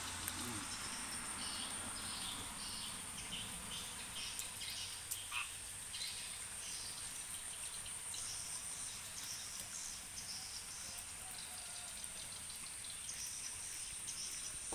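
Frogs and insects calling during rain: a steady high-pitched trill throughout, with repeated bursts of pulsed calls that come and go, over a soft hiss of rain.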